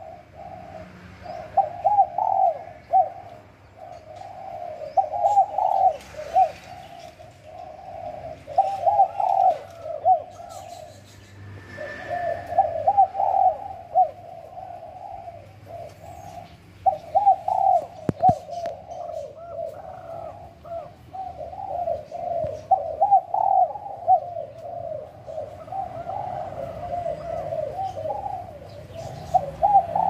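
Spotted dove cooing over and over in long runs of low coos broken by brief pauses, with faint chirps of small birds behind.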